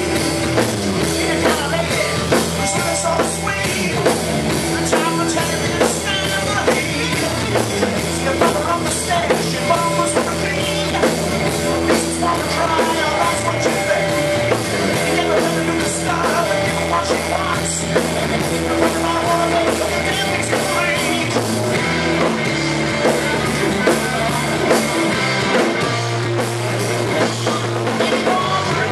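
Live rock band playing: a man singing lead over electric guitar, bass guitar, keyboard and a drum kit keeping a steady beat. The recording is slightly distorted.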